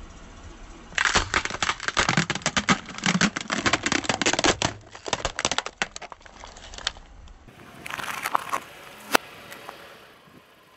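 Car tyre rolling over an inflatable vinyl globe ball, crushing it flat; the thin plastic crackles and crinkles densely for about six seconds. After a break, a shorter burst of crinkling ends in one sharp snap.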